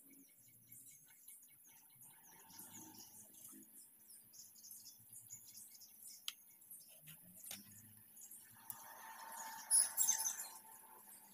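Quiet hand work on a tractor's front differential housing: a few sharp clicks of parts being handled, faint high chirps throughout, and a brief louder rustle about ten seconds in.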